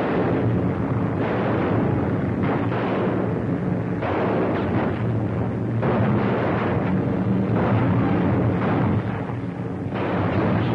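Biplane engine drone: a loud, steady, coarse rushing noise over a low hum, dipping and rising in level a few times.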